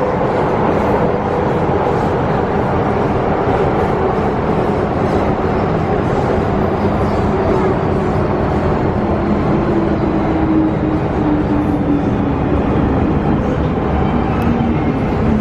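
MTR Tsuen Wan Line M-Train electric train running, a steady loud rumble of wheels and motors on the track. In the second half a motor whine falls in pitch as the train slows.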